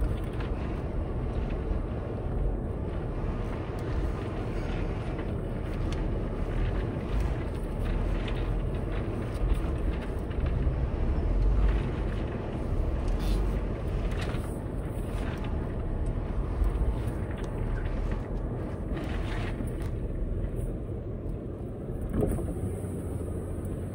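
2010 Land Rover LR4 crawling slowly over rock, its engine running low and steady, with occasional knocks.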